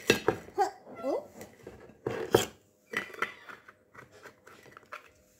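Handling noise: a run of short, sharp clicks and knocks as small things are picked up and moved about, the loudest a little past the middle, with a brief muffled voice in the first second.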